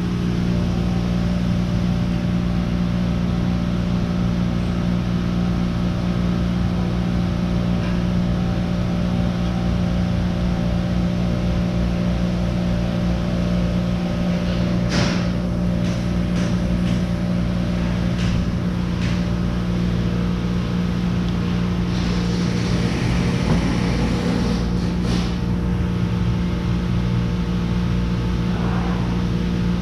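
Steady mechanical hum, a low drone made of several even tones that does not change. A few short clicks and light taps of tools and parts being handled come about halfway through, and a busier patch of them a few seconds later.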